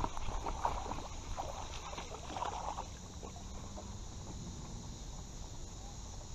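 Baitcasting reel being cranked and a small largemouth bass splashing as it is reeled in and lifted from the water, for the first few seconds; after that only a steady hum of insects remains.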